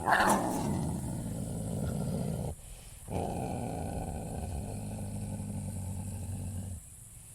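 A large animal growling low and steady, opening with a short loud call that falls in pitch. The sound drops out abruptly twice.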